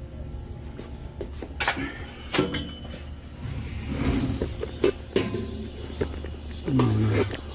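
Steady low machine hum with several sharp knocks and clatters, as of tools and metal parts being handled on a refrigeration unit, and a short low sliding tone near the end.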